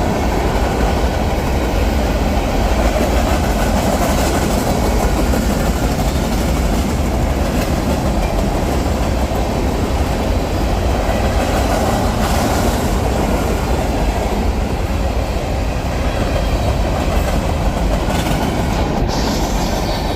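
Union Pacific train rolling past, a steady rumble of its cars' wheels on the rails.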